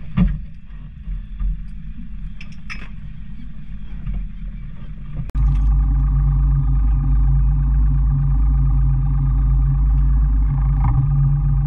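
Boat's outboard motor running steadily, a low hum with a few knocks of gear in the first seconds; about five seconds in it jumps to a much louder, steady engine drone.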